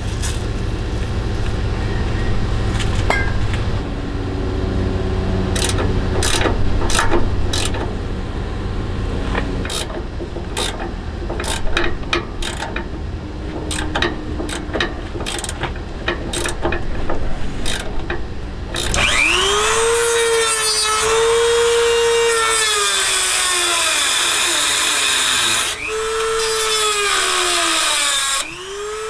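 Metal clinks and knocks of a wrench working on a rusted sway bar end-link nut, then a Dremel rotary tool with a metal cut-off wheel cutting through the end-link bolt, which is being cut off because its Allen socket is stripped. The Dremel's high whine sags in pitch as the wheel bites and recovers, stopping briefly twice near the end.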